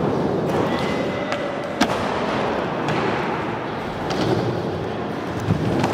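Skateboard grinding along a metal rail for about a second, a scraping ring that ends in a sharp clack as the board comes off; a few more board clacks follow.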